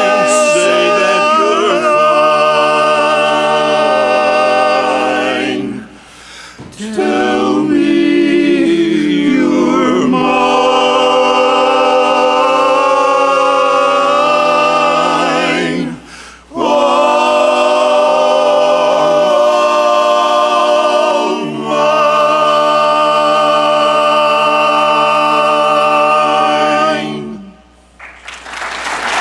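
Barbershop quartet singing a cappella in close four-part harmony: a slow ballad sung in long, held chords, with short breaks between phrases. Applause breaks out right at the end.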